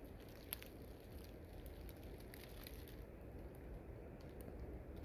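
Quiet outdoor ambience: a low, steady rumble of wind on the microphone with a few faint, scattered crackles.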